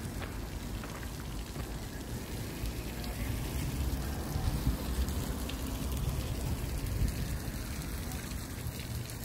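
Steady hiss of water spraying from a park splash-pad fountain, under a low, uneven rumble.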